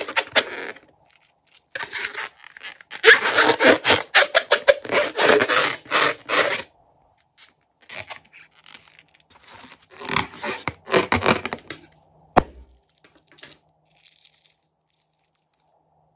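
Scraping, rubbing and crackling as hands handle a rubber balloon and loose plastic sequins, in two dense stretches, with one sharp click about twelve seconds in.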